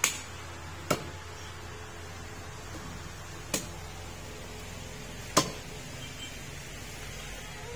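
Meat cleaver chopping goat meat on a wooden log chopping block: four sharp chops at uneven intervals, the last the loudest.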